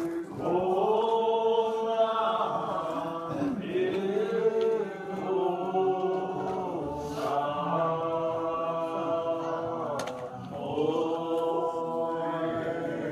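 Congregation singing a hymn in the Muscogee Creek language, in slow phrases of long held notes with a few short breaks between them.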